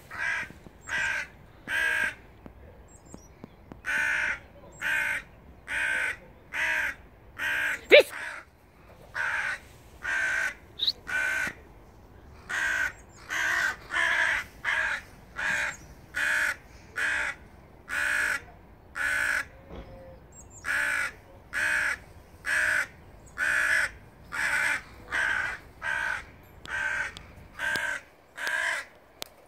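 A crow-family bird (a raven, going by the title) cawing over and over at a steady pace, about one harsh caw every three-quarters of a second: mobbing calls aimed at the dogs. About eight seconds in there is a single brief, loud sweeping squeak.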